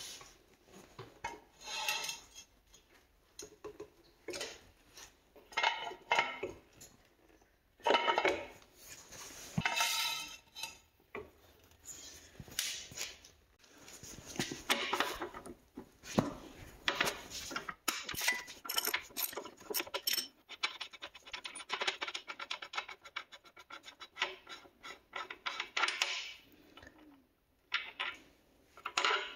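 Metal hand tools clinking, clattering and scraping while a motorcycle's rear wheel is taken off, with irregular clanks and, in the second half, several seconds of fast, dense clicking.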